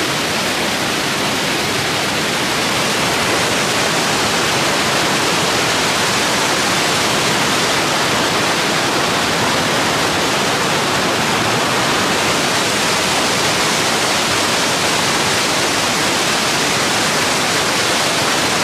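Loud, steady rush of a large waterfall's falling water.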